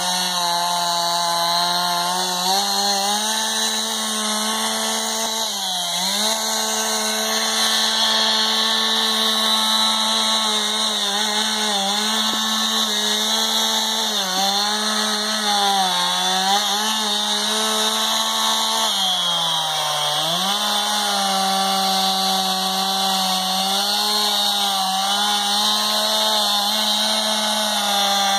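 Gasoline chainsaw running at high revs while cutting through a fallen tree trunk, its pitch dropping several times as the chain bogs into the wood and climbing back as it clears the cut.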